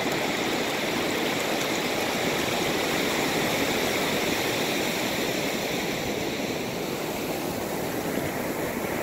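Ocean surf: waves breaking just offshore and a sheet of foamy water washing up over the wet sand, a steady rushing hiss that eases slightly in the second half.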